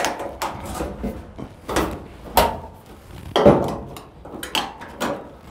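Putty knife prying at the side clips of a Whirlpool Cabrio dryer's top panel: a run of sharp clicks and clunks with scraping as the clips let go and the top is lifted open. The loudest clunk comes about three and a half seconds in.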